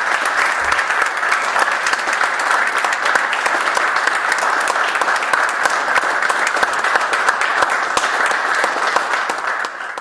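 Audience applauding: many hands clapping in a dense, steady clatter that cuts off abruptly at the end.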